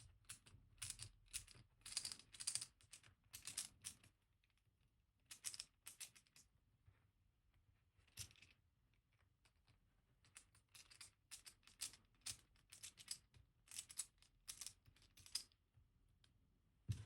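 Faint, short metallic clicks and scrapes in irregular clusters, with quiet gaps: a small screwdriver working out the two screws that hold the cam piece on a lock cylinder.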